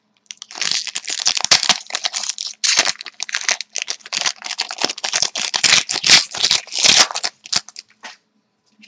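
Hockey card pack wrapper being torn open and crumpled, a dense run of crinkling and tearing crackles that stops about seven and a half seconds in.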